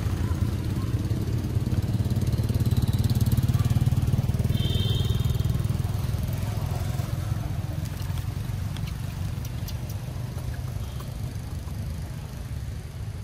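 Motorbike engines passing on a road, a steady low drone that is loudest a few seconds in and then slowly fades. A brief high chirp sounds about five seconds in.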